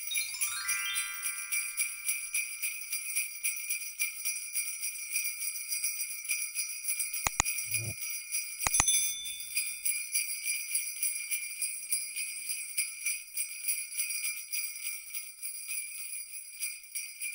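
Jingle bells shaking steadily, with a quick rising run of chimes at the start and a few sharp clicks about halfway through.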